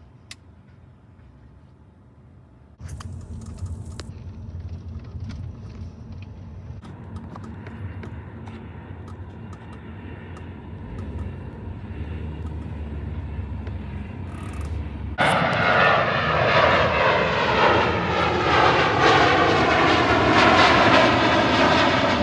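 Aircraft flying over on approach: for much of the time a steadier, quieter drone, then about fifteen seconds in a Boeing 737 jet airliner passing low overhead, much louder, with tones falling as it goes by. The sound cuts off abruptly at the end.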